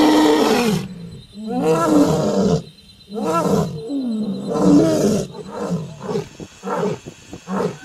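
A big cat roaring: four long roars, then a run of shorter grunting calls repeated about once a second.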